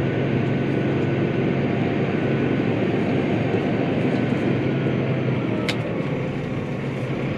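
Tractor engine running steadily under load while ploughing, with one sharp click near the end.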